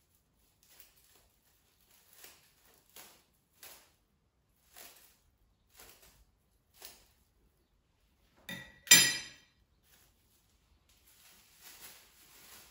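Scissors snipping through a sheet of clear plastic, about seven short cuts roughly a second apart. About nine seconds in comes one loud, sharp clink of something hard on a hard surface, the loudest sound here, and near the end the plastic sheet crinkles as it is handled.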